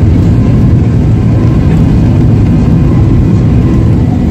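Cabin noise of a Boeing 737-800 rolling on the runway: its CFM56 engines running with a loud, steady low rumble.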